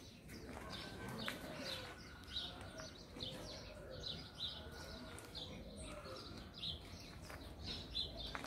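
Small birds chirping, many short, high calls overlapping, faint.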